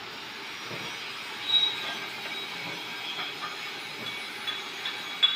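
Stick-welding arc from an E6011 2.5 mm electrode running a root pass on pipe, a steady crackle, with a brief high squeal about a second and a half in and a sharp click near the end.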